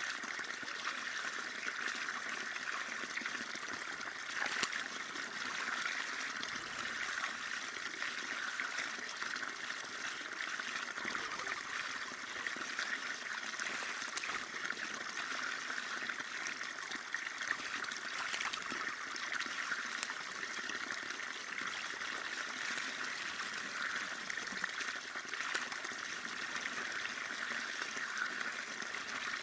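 Running water, a steady trickling and splashing rush that goes on without pause.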